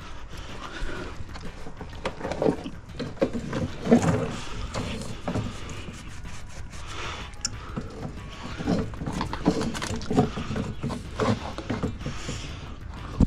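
Drain inspection camera being pushed along a sewer pipe, its head and push-rod knocking and clattering irregularly against the pipe walls.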